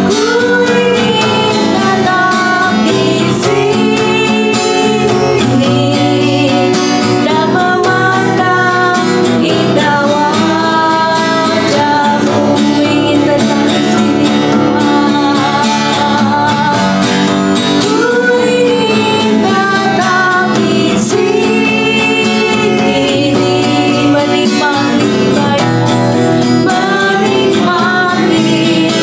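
Worship song: a singing voice over guitar accompaniment.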